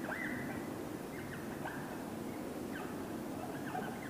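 Felt-tip marker squeaking against a whiteboard as words are written: one longer squeak near the start, then short squeaks with each stroke.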